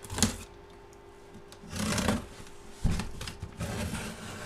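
Handling noise from opening a box break box: rustling of cardboard and packaging, with a knock about a quarter second in and a sharper knock near three seconds.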